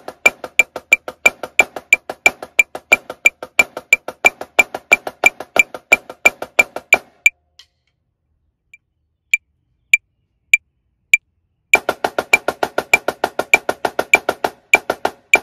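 Marching snare drum played with sticks against a metronome click, in fast even strokes of the accent-tap exercise at 180 beats a minute, which stops about seven seconds in. After a pause, four metronome clicks count in, and a sixteenth-note timing exercise at 100 beats a minute begins.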